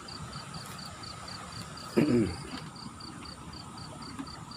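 An insect chirping steadily in short, high, even pulses, about three to four a second. About two seconds in, one brief loud voiced grunt cuts across it.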